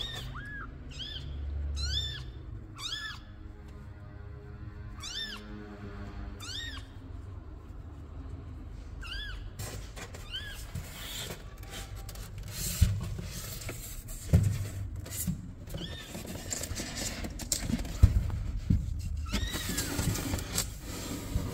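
Newborn kittens mewing: a quick run of short, high-pitched cries, each rising and falling, through the first ten seconds, then scattered cries. A few soft knocks come in the second half.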